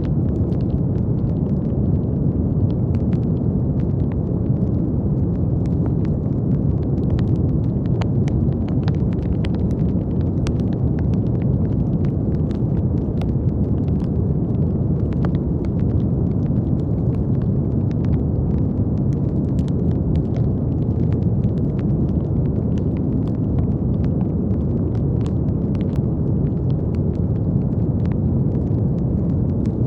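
Continuous brown noise: a steady, deep rumbling hiss with most of its weight in the low end and little treble. Faint, irregular crackle-like clicks are scattered through it.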